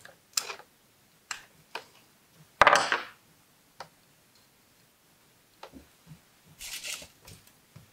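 Small handling sounds of crafting by hand: light clicks and taps of a thin metal tool against a bead and acorn cap. There is a louder short rustle about three seconds in and a brief hissy rustle near the end.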